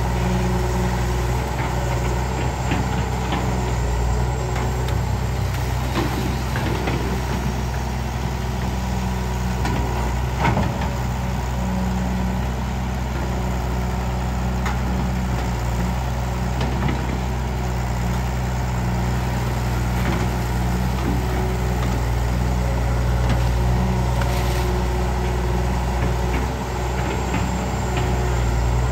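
Kobelco SK09 excavator's diesel engine running steadily while it digs, with a few short knocks partway through.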